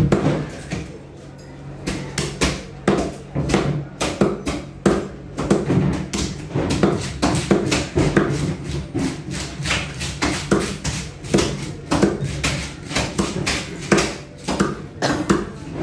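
A knife chopping through snapper on a wooden board, sharp knocks about twice a second in an uneven rhythm, starting about two seconds in.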